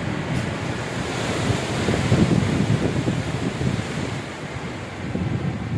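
Strong wind blowing in gusts and buffeting the microphone, a rushing roar with low rumbling that swells about two seconds in and eases off near the end.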